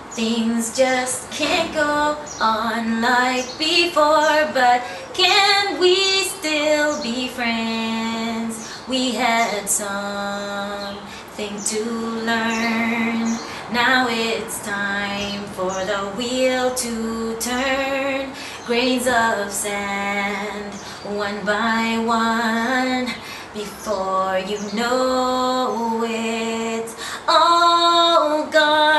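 A woman singing solo and unaccompanied, in phrases of long held notes with short breaths between them.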